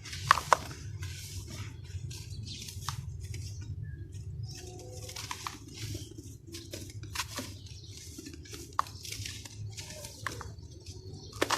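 Crunchy sand being crumbled: a run of irregular crackling crunches with a few sharp clicks, the loudest about half a second in, over a low steady hum.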